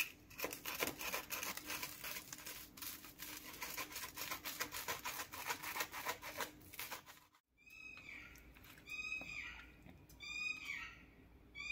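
A knife sawing through crisp toasted sandwich bread on a wooden board, the crust crunching and crackling rapidly for about seven seconds. After a short break, a high chirping call repeats four times, about once every second and a half.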